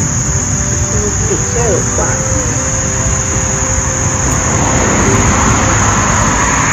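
Outdoor summer insect chorus: a steady high-pitched chirring that does not let up, over a low rumble that swells slightly about five seconds in.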